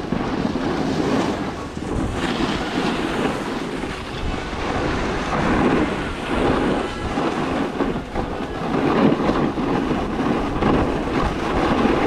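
Wind buffeting an action camera's microphone, mixed with the rushing scrape of a snowboard sliding over packed, tracked-up snow. A steady, uneven rush that swells and dips.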